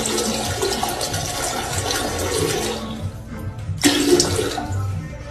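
Water rushing, a steady noisy flow that eases off about three seconds in and surges again a moment later.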